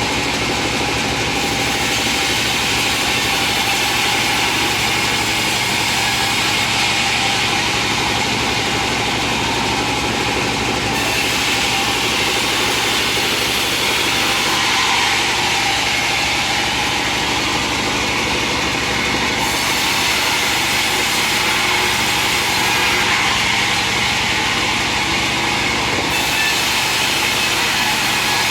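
An engine-driven wood-cutting machine running steadily, with a continuous drone and hiss.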